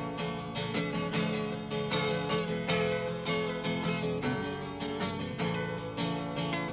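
Acoustic guitars playing an instrumental break in a song, fingerpicked, with no singing.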